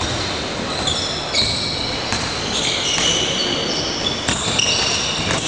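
Basketball practice on an indoor court: many short, high sneaker squeaks on the floor, with basketballs bouncing and a few sharp knocks, echoing around a large sports hall.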